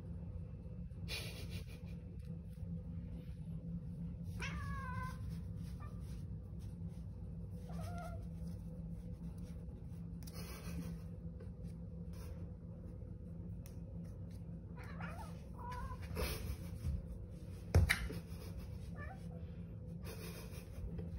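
A domestic cat meowing several times, drawn-out cries that rise and fall in pitch, over a steady low hum, with a sharp knock near the end.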